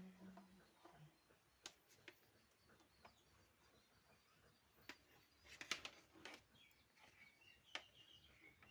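Near silence, broken by a few faint, sharp clicks and taps, with a quick cluster of them about halfway through.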